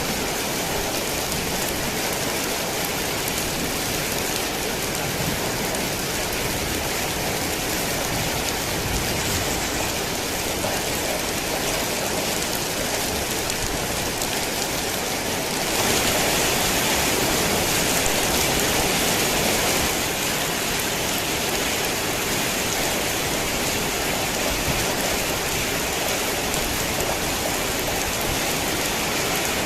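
Heavy rain falling steadily. It grows louder for a few seconds about halfway through, then settles back.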